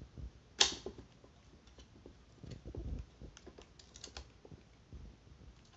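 Light plastic clicks and knocks as a phone is fitted into a ring light's phone holder. One sharp click comes about half a second in, and a quick run of small clicks comes around four seconds.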